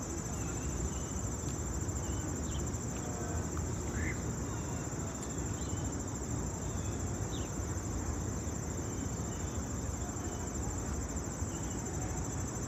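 Insects trilling in a steady, high, pulsing drone over a low steady rumble, with a few short high chirps scattered through.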